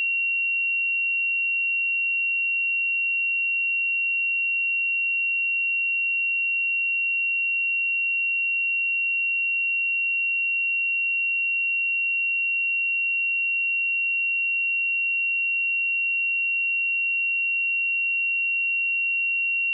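A pure 2744 Hz sine-wave test tone, a single steady high-pitched note held at constant loudness.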